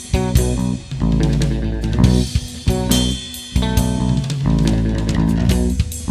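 Music with guitar, bass guitar and a drum kit playing a steady beat.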